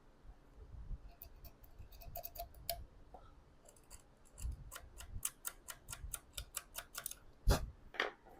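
Quick runs of small scraping clicks, several a second, from cleaning grime off a battery's metal terminal contacts. There is a pause around the third second, and the strokes get louder near the end.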